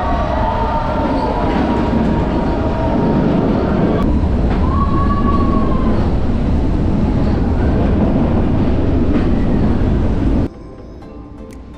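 Nilgiri Mountain Railway train running: a steady, loud rumble of wheels on the track with squealing wheels now and then, one squeal rising and falling about five seconds in. The train noise cuts off abruptly near the end, leaving a much quieter background.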